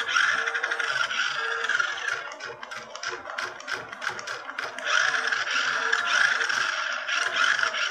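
Small electric drive motor and plastic gearbox of a toy RC rock-crawler car whirring as its wheels spin freely in the air. It runs in two spells of a few seconds each, with rattling clicks in between.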